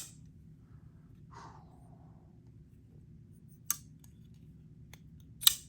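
Sharp clicks from a Kizer Militaw folding knife's blade being opened and snapped shut: one right at the start, another a little past halfway, and a loud one near the end.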